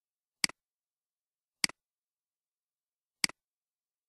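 Three computer mouse clicks, each a sharp press followed by a softer release click, about one to one and a half seconds apart, with dead silence between them.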